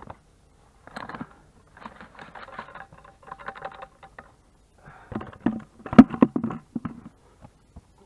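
Loose soil being tipped from a plastic bucket onto rock around a seedling's roots and pressed down by hand: irregular crackling and pattering, with the heaviest thuds about six seconds in.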